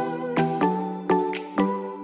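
Background music: a melody of separate, clearly started notes, about two or three a second.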